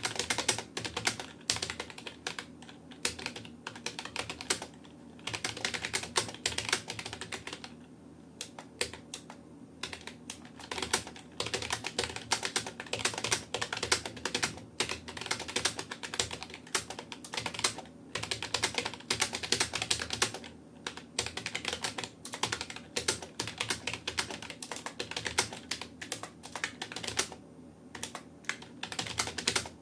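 Fast touch typing on a Rapoo computer keyboard: a rapid, continuous stream of key clicks at about 65 words a minute, broken by brief pauses about eight, ten and twenty-eight seconds in.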